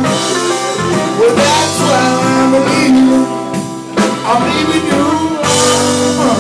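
Live blues band playing a slow blues: electric guitar, bass guitar and drum kit, with the lead guitar bending notes in a phrase between sung lines.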